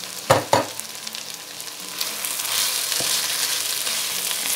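Pork, onion, carrot and freshly added eggplant strips sizzling as they fry in a kazan, stirred with a wooden spatula. Two sharp knocks come near the start, and the sizzling grows louder about two seconds in.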